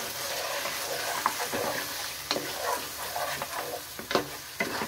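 Beef chunks and yogurt frying in hot ghee in a nonstick kadhai, sizzling steadily while a spatula stirs and scrapes them round the pan, with scattered knocks of the spatula against the pan. This is the bhuna stage of frying the meat down with its masala.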